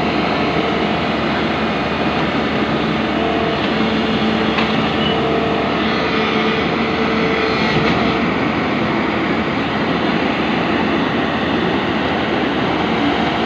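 JCB NXT205 excavator's diesel engine running steadily under load, a loud continuous mechanical drone.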